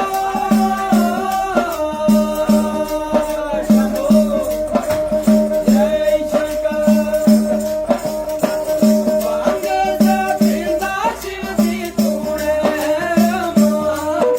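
Indian folk music: a held, gliding melody over a steady low beat, with a rattle-like shaker percussion.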